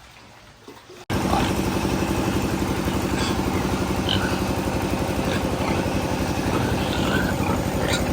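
A small engine running steadily with a rapid even chugging, cutting in abruptly about a second in after a quieter stretch.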